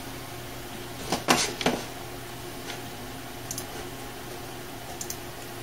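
Steady hum of a running Dell OptiPlex 390 desktop's fans, whose replacement power supply runs without squealing. A few sharp clicks come about a second in, with two faint ticks later.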